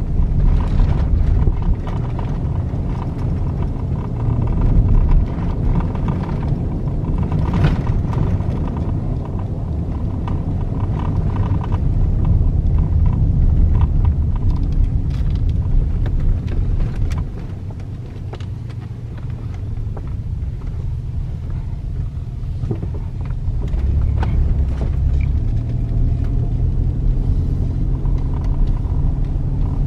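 Car's engine and tyres heard from inside the cabin while driving slowly along a winding road: a steady low rumble, with a few small knocks.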